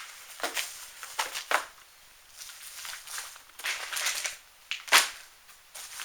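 Plastic packaging rustling and crinkling in irregular bursts as kit parts are dug out of a box. A sharp click comes about five seconds in and is the loudest sound.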